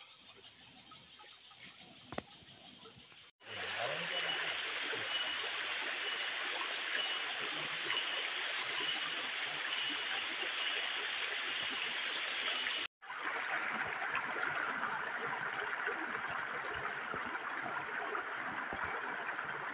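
Shallow rocky forest stream running and trickling over stones. It is faint for the first few seconds, then louder rushing water comes in abruptly, breaks off for an instant about two-thirds of the way through and resumes. A faint high note repeats about once a second through the middle.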